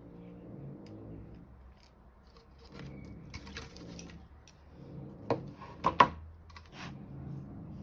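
Small parts of a handheld automotive scan tool being handled during a battery replacement: scraping and light clicks, then three sharp plastic clicks a little past five seconds in, the last the loudest.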